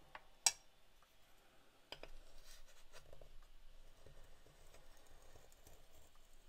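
A sharp click about half a second in and another about two seconds in, then faint scraping as a steel scraper is drawn down a steel fineness-of-grind gauge through a bead of azurite watercolor paint, testing how finely the pigment has been mulled.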